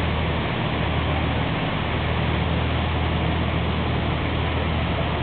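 Tour boat's engine running steadily with a low drone, over the rushing hiss of water churned up alongside the moving hull.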